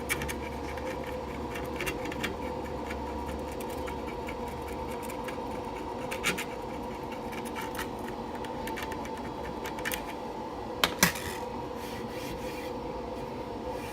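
Razor blade scraping old silicone sealant off aquarium glass: steady rubbing, rasping strokes, with a sharper click or two about six and eleven seconds in.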